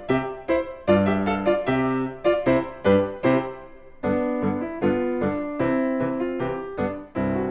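Piano music: notes and chords struck in a quick, even rhythm, each ringing and fading.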